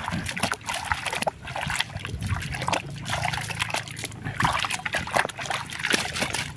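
Water splashing and sloshing in a plastic bucket as a hand swishes and scrubs a small plastic toy bus through it, in quick irregular splashes.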